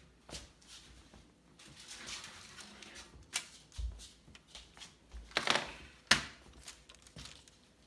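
Scattered light clicks and knocks of kitchen handling around a tray of freshly baked cookies, with a short rustle about five and a half seconds in.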